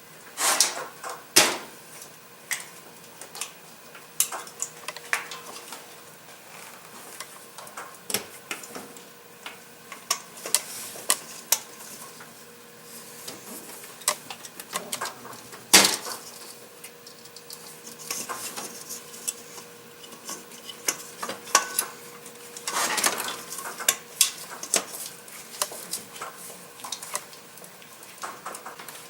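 Irregular clicks and plastic clatter as spark plug wire boots are pulled off an old distributor cap and pushed onto a new one, with a few sharp, louder snaps.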